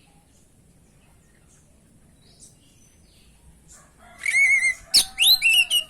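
Oriental magpie-robin (kacer) singing. After a few faint chirps, a loud phrase starts about four seconds in: a quick run of about five repeated warbled notes, then a string of arching whistled notes.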